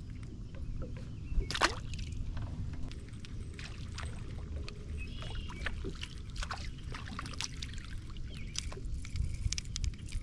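Lake water sloshing and lapping against a kayak hull, with scattered small splashes and ticks and a steady low rumble underneath. Near the end a hooked fish splashes as it is lifted out of the water.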